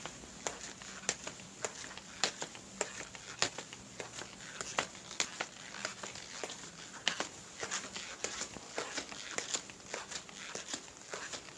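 Footsteps walking at a steady pace, about two steps a second, each step a sharp tap with fainter ticks between steps.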